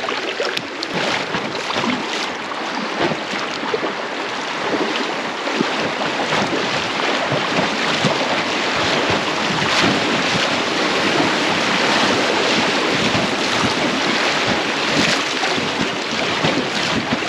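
Fast-flowing river water rushing steadily around a small inflatable boat on the water.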